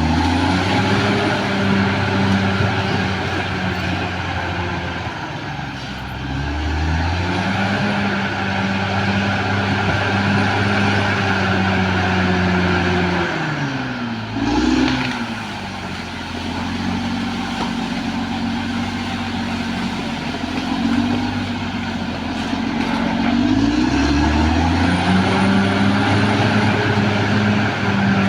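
Caterpillar D6R XL bulldozer's diesel engine working under load. The engine note drops and climbs back several times as the load and throttle change, with a brief deeper dip about halfway through.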